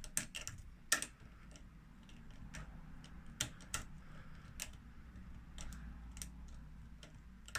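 Light, irregular metallic clicks and scratches of a homemade piano-wire lever pick working inside a 7-lever disc padlock, with the bolt pushed under tension while the levers are lifted.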